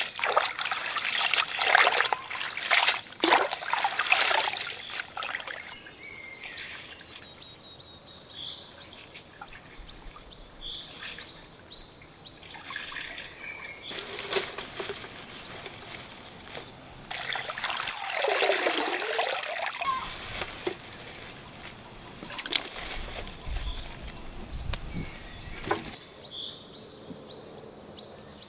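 Water splashing and sloshing in a tub as fresh herbs are swished about by hand during the first few seconds, then water trickling and dripping off the wet herbs. A bird chirps over and over in quick repeated notes through most of it.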